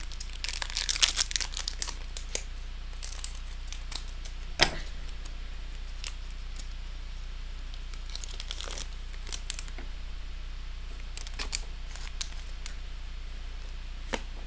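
Pokémon TCG booster pack's foil wrapper being torn open and crinkled by hand: crackling in short, scattered bursts, with a sharper snap about four and a half seconds in.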